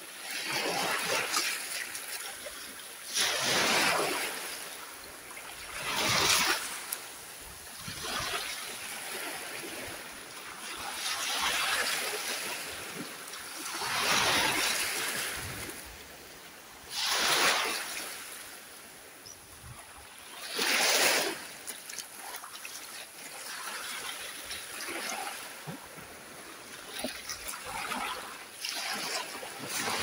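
Small sea waves breaking and washing up a sandy shore, a surge of surf every three seconds or so, a few of them landing with a sharper splash.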